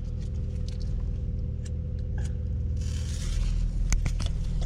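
Steady low hum of a car engine idling, with scattered sharp clicks and a brief hiss about three seconds in.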